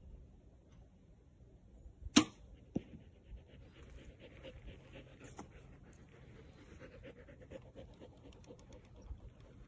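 A bow being shot: one loud, sharp string release about two seconds in, then a fainter knock about half a second later as the arrow strikes the target.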